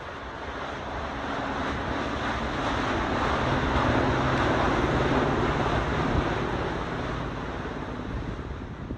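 A rushing, wind-like noise with a low hum beneath, swelling over the first few seconds and then slowly easing off before cutting off suddenly at the end.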